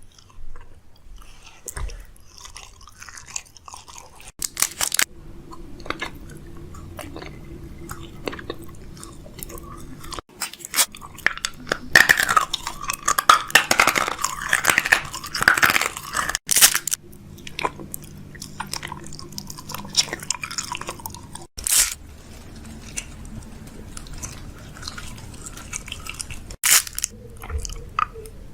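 Close-up crunchy chewing and biting, with many sharp crunches and clicks, densest and loudest in the middle, over a faint steady hum. The sound breaks off abruptly several times, as at edits.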